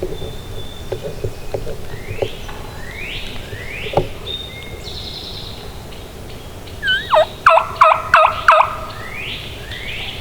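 A wild turkey gobbles once about seven seconds in: a loud, rapid, rattling run of notes lasting under two seconds. Songbirds sing short, repeated rising phrases throughout.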